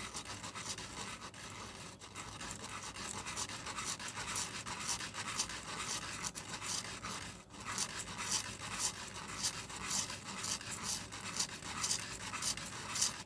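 A plastic fountain-pen part being rubbed back and forth on 220-grit emery paper to flatten its broken face, a rasping scratch about twice a second. There is a brief pause about seven seconds in.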